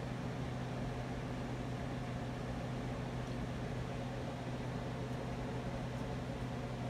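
Spirit box sweeping through radio stations: continuous steady static hiss over a constant low hum.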